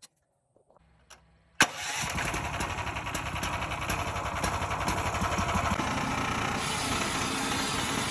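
Small gasoline engine of a homemade sawmill starting: a couple of faint clicks, then it catches suddenly about a second and a half in and runs steadily.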